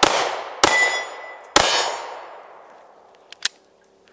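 Three pistol shots from a CZ P10S, at the start, about half a second later and a second after that, each followed by the long ring of a steel plate target being hit. Near the end comes a single short click.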